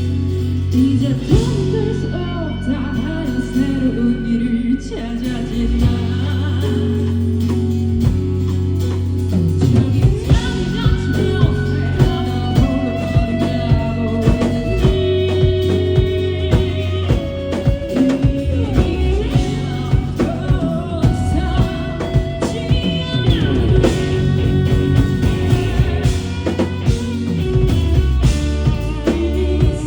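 A live rock band playing a song with a singer, guitars, bass and drum kit; a steady drum beat comes in about ten seconds in.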